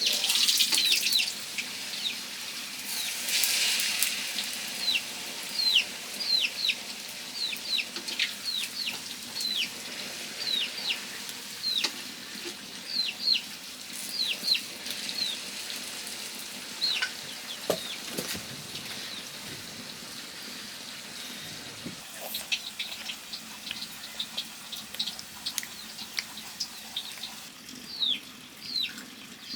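Chicks peeping: many short cheeps, each falling quickly in pitch, coming irregularly and sometimes several a second, over the faint steady sizzle of bread frying in oil.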